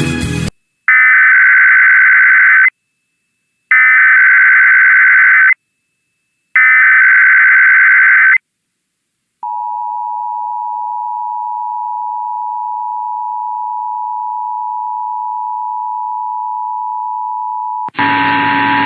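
Emergency Alert System SAME header: three bursts of screeching digital data tones, each about two seconds long and a second apart. They are followed by the steady two-tone EAS attention signal, held for about eight and a half seconds. A louder, noisier sound cuts in near the end as the tone stops.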